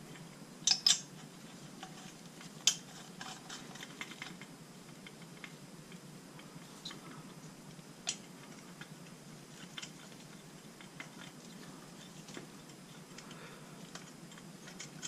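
Small metal clinks and ticks of cylinder head bolts and washers being picked from a parts tray and threaded on by hand onto an 80cc motorized bicycle engine's cylinder head. Two sharp clinks come just under a second in, another near the three-second mark and one more around eight seconds, with faint ticks between over a low steady hum.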